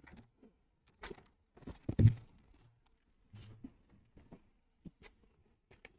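Scattered soft knocks, thuds and rustles of wigs and things on the table being handled and set down, the loudest a low thud about two seconds in.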